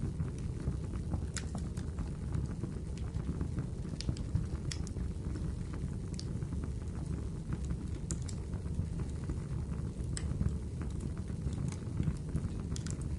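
Wood fire crackling in a fireplace: a steady low rush of burning logs with irregular sharp pops and snaps throughout.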